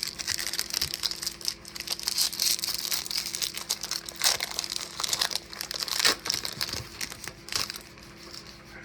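A foil wrapper on a pack of baseball cards being torn open and crinkled: a run of crackling with a few sharp rips, easing off about a second before the end.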